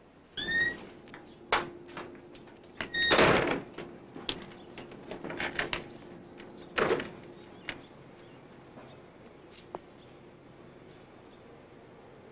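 A short squeak, then a series of clicks and knocks, with a loud thump about three seconds in and another about seven seconds in.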